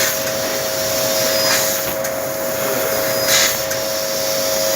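1500 W fiber laser cutting machine running: a steady two-note hum under a constant hiss, with short louder rushes of hiss about every second and a half.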